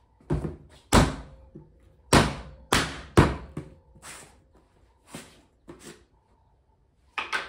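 Sharp knocks and thuds from a plastic creatine tub with a stuck screw-on lid being worked open: about eight hard knocks at irregular intervals, then it goes quiet.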